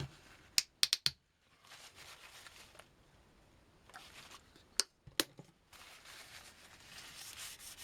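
A few sharp clicks and knocks of handling, then from about six seconds in a cloth rubbing quickly back and forth over the ZX Spectrum's case to clean off grime.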